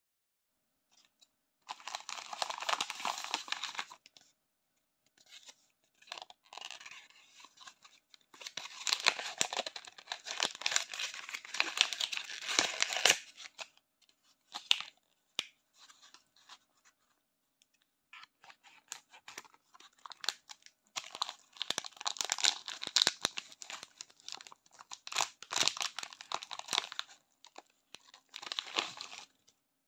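Plastic snack wrappers crinkling and tearing as they are opened and handled by hand, in several bursts of crackling with quiet pauses between.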